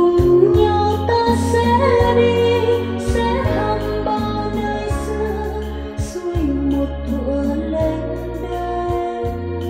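A song played back from a cassette on a Nakamichi 600II deck, with singing over keyboard and bass.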